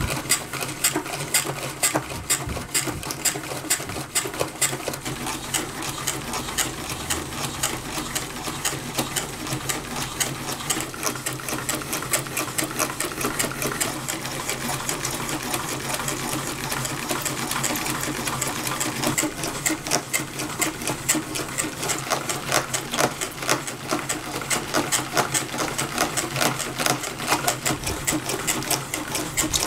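Hand-cranked automaton's newspaper-covered crankshaft and cams turning, giving a rapid, even mechanical clatter of clicks.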